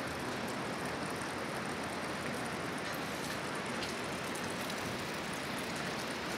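Steady rushing of running water, an even hiss that holds level throughout.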